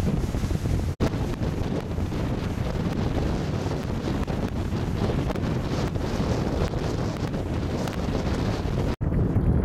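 Steady wind buffeting the microphone aboard a moving tour boat, a dense low rumble with no distinct tones. The sound drops out for an instant about a second in and again near the end.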